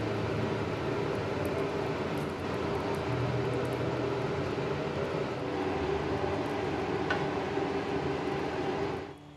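Steady roar with a low hum from the stovetop while noodles are stir-fried in a wok; it cuts off suddenly near the end.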